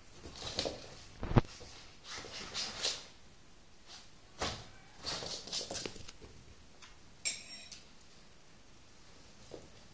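Rustling of a fabric cat play tunnel and paws on a wooden floor as a kitten scrambles in and out of it, in short bursts over the first six seconds, with one sharp knock about a second and a half in.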